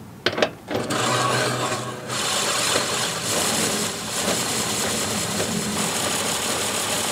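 Blade cylinder of an old cylinder lawnmower spinning fast with an abrasive sharpening strip grinding the blade edges: a few clicks, then a steady whirring, rasping rush from about a second in.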